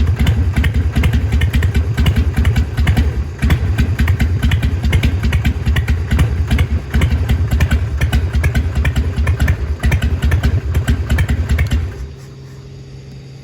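Harley-Davidson Sportster 883R's air-cooled 883 cc V-twin idling with its uneven loping 'potato' beat, its carburettor freshly rebuilt. Near the end the engine sound stops abruptly, leaving a quieter steady hum.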